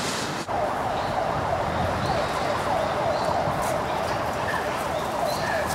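A dense chorus of many small animal calls, short falling notes overlapping in a steady mass, with a few higher bird chirps over it. It starts abruptly just under half a second in.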